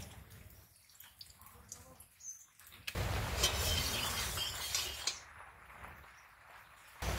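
Metal spatula scraping and clinking against an aluminium karahi as the oil is spread around the pan, starting suddenly about three seconds in and fading after a couple of seconds; before it, only scattered light ticks and faint bird chirps.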